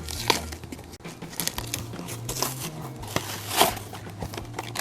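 Plastic and cardboard toy packaging crinkling and clicking in irregular bursts as a die-cast toy car is unboxed by hand.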